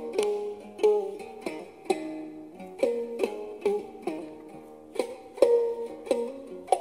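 Khse diev, the Khmer monochord stick zither with a gourd resonator, played solo: a melody of single plucked notes, about two a second, each ringing and fading.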